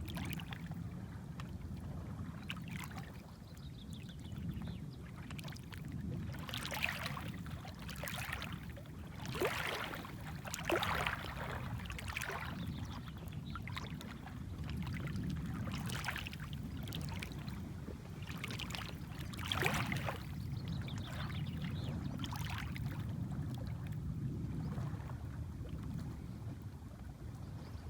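Gentle small waves lapping at a shoreline. A steady low wash runs under irregular short splashes a few seconds apart.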